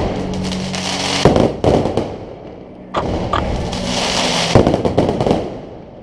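Aerial fireworks going off: about five sharp bursts in six seconds, with a dense hiss between them.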